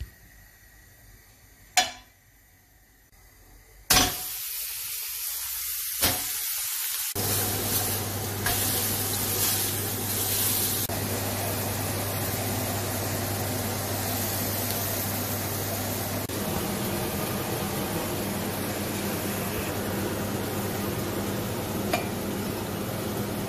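Venison steaks frying in a pan: after a quiet opening with a couple of knocks, a loud sizzle starts suddenly about four seconds in and settles into a steady hiss.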